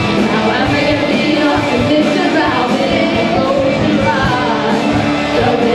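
Live rock band playing: a female lead singer over guitars, keyboard and a drum kit keeping a steady beat.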